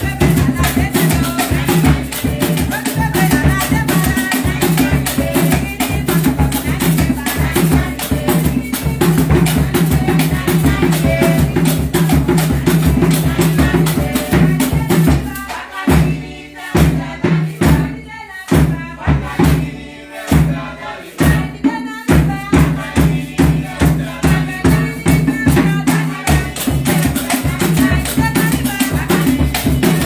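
Hand drums and rattles playing a fast, steady dance rhythm, with voices singing over the first half. About halfway through, the playing thins for several seconds to separate, heavy drum strokes with short gaps before the full beat comes back.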